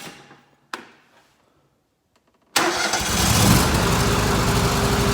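Two short clicks, then about halfway through the lawn tractor's engine comes on suddenly and keeps running steadily. It is the engine that would not start before, now running on the makeshift repair, and it purrs like a kitten.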